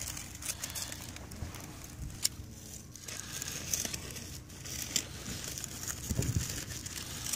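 Dry corn husks crinkling and tearing as they are handled and pulled apart, with a few sharp ticks.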